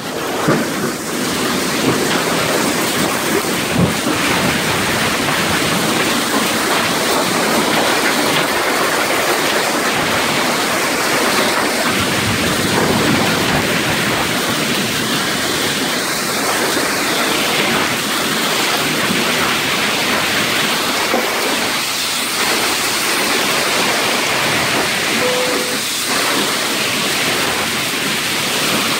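Torrential rain mixed with hail pouring down steadily in a severe thunderstorm.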